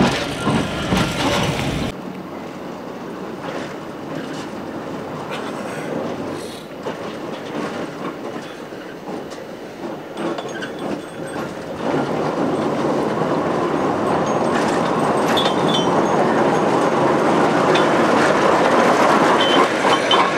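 Old narrow-gauge electric mining locomotive running on its rails: loud close up for the first couple of seconds, then more distant and growing steadily louder from about halfway through as it approaches and passes close by. Its wheels clatter over the track, with a few short high squeals near the end.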